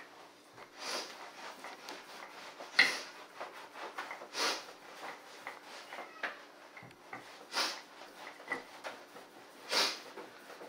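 Wooden rolling pin rolling out dough on a silicone baking mat over a wooden table: a rubbing swish with each stroke, about every two seconds, the sharpest and loudest one about three seconds in.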